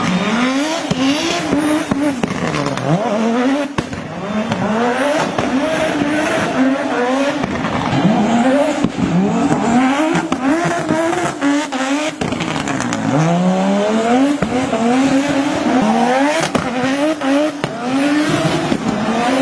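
Audi Sport Quattro S1 rally car's turbocharged five-cylinder engine revved hard again and again, the pitch climbing and falling roughly every second, with sharp pops between the revs and tyres squealing as it is driven sideways.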